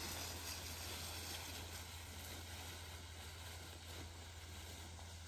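Faint steady hiss with a low hum underneath, slowly fading, with no distinct event: background noise with no clear source.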